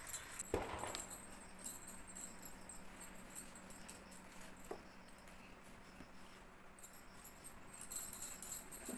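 A Labrador puppy scratching itself, its metal collar tags jingling in spells near the start and again near the end, with a few soft knocks in the first second.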